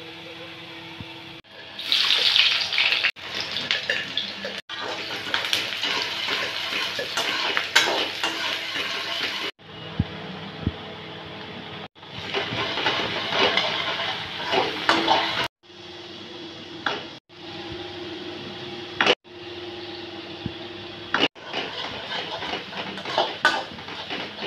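Onions sizzling as they fry in hot oil in an iron kadai, with a wooden spatula scraping and knocking against the pan. The sizzle cuts off abruptly and restarts several times.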